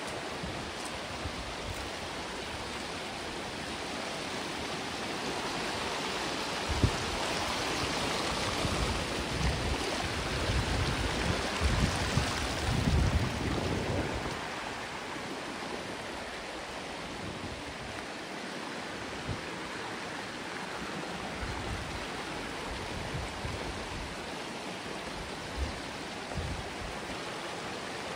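Creek water running steadily. It swells louder for several seconds about a third of the way in, with a few low bumps.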